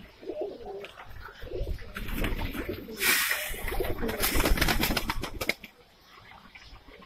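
A flock of Saharanpuri high-flyer pigeons cooing in a loft. A loud rustling flurry sets in about three seconds in and lasts a couple of seconds before the sound drops away.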